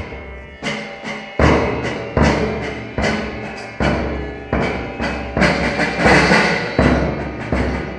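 Tabla played in rapid clusters of strokes with deep, resonant bass-drum notes, a galloping rhythm imitating a running horse. It gets denser and louder in the second half.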